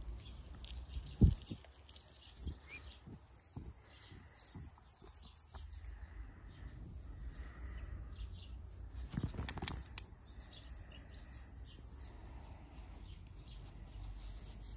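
Insects trilling in a steady high band that breaks off twice and starts again. A sharp thump about a second in, with a few softer knocks later, over low rumbling handling noise.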